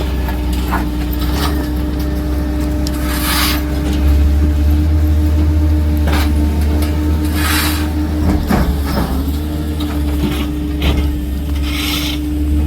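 A heavy work vehicle's engine running steadily with a low rumble and a constant hum, while debris is scraped in three short rasping strokes about four seconds apart, with a few knocks partway through.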